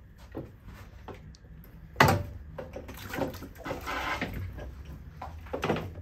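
An open-frame 3D printer lowered into a water-filled glass aquarium: a sudden knock and splash about two seconds in, then water sloshing and bubbling as the printer goes under, with another knock near the end.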